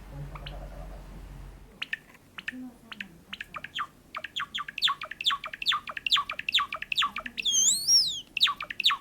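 Java sparrow singing: a string of short, sharp, falling chirps starting about two seconds in and speeding up into a rapid run, with a long wavering note near the end.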